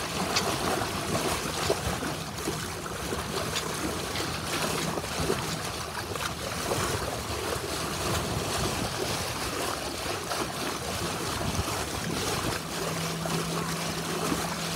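Bow wave rushing and splashing along the hull of a moving sailboat. A low steady hum joins in near the end.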